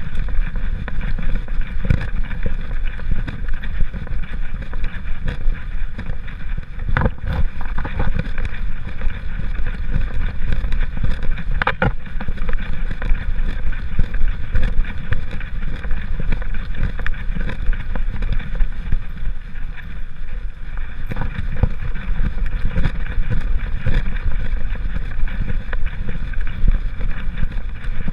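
Steady rumbling, rustling noise from a GoPro strapped to a walking poodle's back: the camera jostling against the dog and its harness, with wind on the microphone. A few sharp clicks come through now and then.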